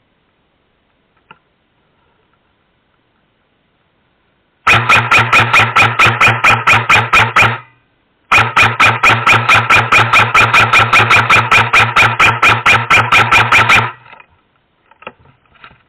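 Airsoft electric gun firing on full-auto in two long bursts, about three and five and a half seconds long, with a short pause between them. Each burst is a fast, even run of sharp shot clicks over a steady motor hum.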